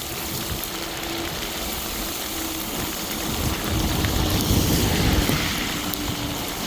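Electric fat-tyre bike rolling downhill through snow and slush, its tyres giving a steady rushing noise that swells about three to five seconds in, with a faint steady hum underneath.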